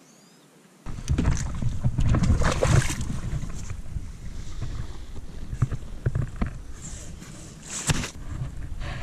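Wind buffeting the microphone in a gusting low rumble, with small clicks and rustles over it. It starts abruptly about a second in, after near silence.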